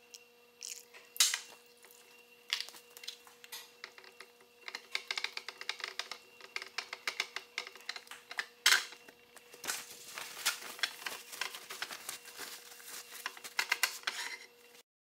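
An irregular run of small clicks and taps, sparse at first and growing dense a few seconds in, over a steady low hum; it cuts off suddenly near the end.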